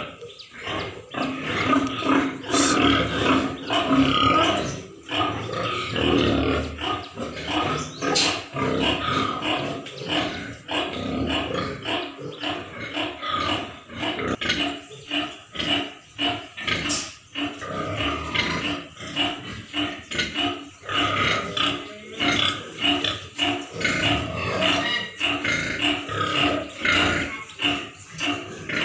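Pigs grunting, a near-continuous stream of short rough calls without pause.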